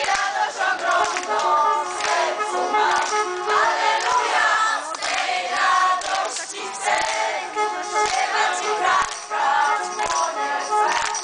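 A crowd of pilgrims singing a hymn together as they walk, with hand claps.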